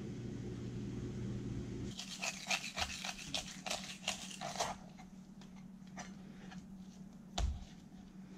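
A kitchen knife cutting and scraping a raw lingcod fillet on a plastic cutting board. Over a low hum that stops about two seconds in, it makes a quick run of short strokes, several a second, followed by a few fainter ticks and a soft thump near the end.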